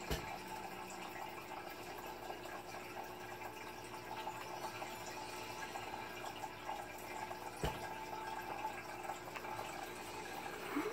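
Steady trickling and bubbling of water in a turtle tank, typical of an aquarium filter running, with two light knocks, one near the start and one about three quarters through.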